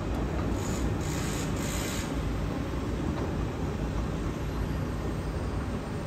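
Hitachi ZAXIS 210K hydraulic excavator's diesel engine running steadily, with three short hisses about a second in.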